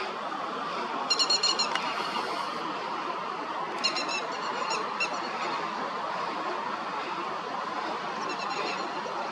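Grey-headed lapwing calling in short bouts of rapid, sharp, high notes: a loud bout about a second in, another around four seconds in, and a fainter one near the end, over a steady background hiss.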